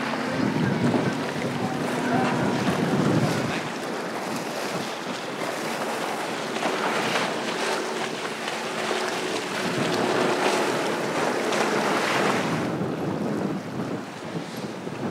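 Center console boats running by at speed on outboard motors: a low engine drone under the hiss of the wake and spray, with wind buffeting the microphone. The hiss eases off near the end.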